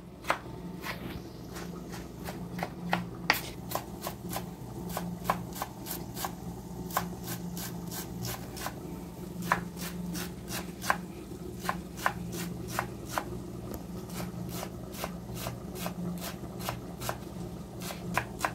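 Chef's knife chopping tomato and then fresh cilantro on a wooden cutting board: quick, irregular knocks of the blade on the board, about three a second, over a steady low hum.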